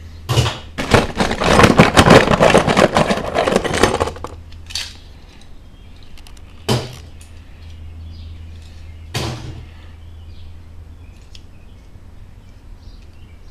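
Die-cast metal toy cars clattering and clinking together as they are rummaged through, for about four seconds, then a few single knocks, over a steady low hum.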